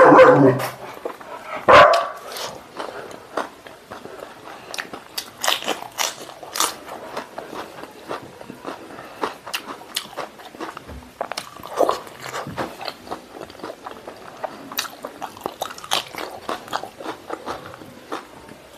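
Close-up eating sounds: a man chewing boiled pork stomach and intestine picked up by hand, with many small wet mouth clicks and smacks. A loud, short pitched sound comes at the very start and another about two seconds in.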